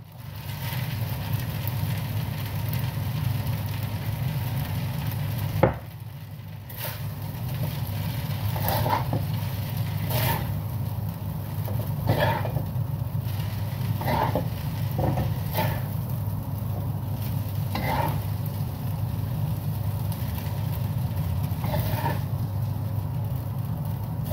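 Rice noodles sizzling in a wok as they are stir-fried and tossed with a spatula, the spatula scraping and knocking against the wok every second or two, over a steady low hum.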